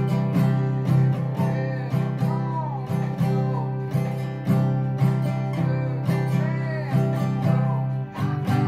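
Acoustic guitar strummed in a steady rhythm, about two strums a second, with a nickel coin used as the pick; the chord changes near the end.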